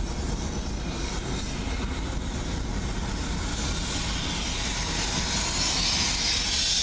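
Car road noise, a steady low rumble, as the vehicle moves slowly; from about halfway a high hiss grows louder: gas venting from the wreckage.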